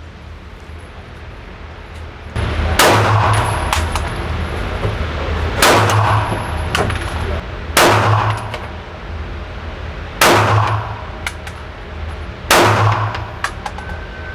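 Five slow, deliberate pistol shots, spaced about two to three seconds apart, from a Smith & Wesson M&P 2.0 Compact, each ringing out with reverberation in an indoor range. Fainter clicks are heard between the shots.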